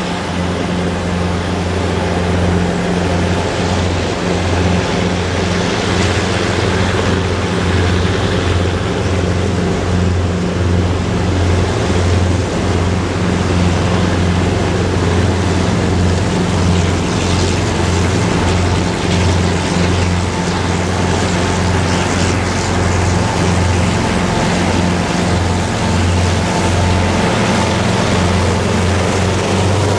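Three CC 202 diesel-electric locomotives hauling a loaded coal train, their engines giving a steady low drone that grows louder over the first few seconds as they approach and pass close by, with the rumble of the train running over the track.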